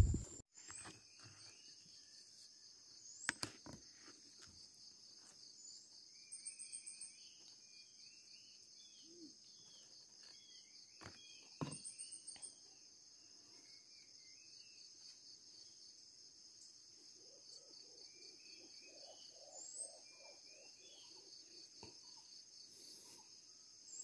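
Faint, steady high-pitched insect chorus, with scattered short bird chirps and a few soft clicks.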